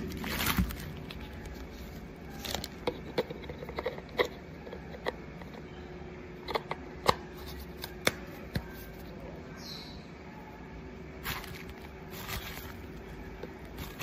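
Grey plastic washing-machine riser feet being handled: scattered clicks, taps and light scrapes as the parts are turned over and fitted together, over a faint steady hum.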